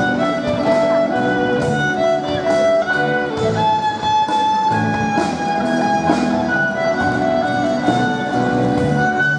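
Live band music led by a violin bowing a melody of held notes over a pulsing accompaniment.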